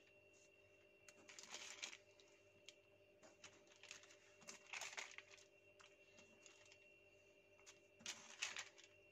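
Faint crinkling rustles, three short bouts, as hands fold oiled msemen dough and peel the plastic sheet under it away from the folded square, over a faint steady hum.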